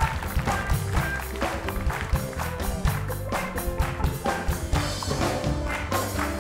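Upbeat studio band music with a steady drum beat and bass line.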